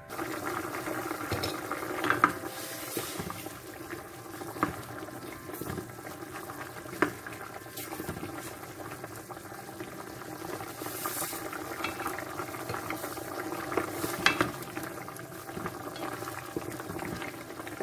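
Tomato broth with potato chunks simmering in a stainless-steel pot, stirred with a spatula, with a few sharp knocks of the spatula against the pot.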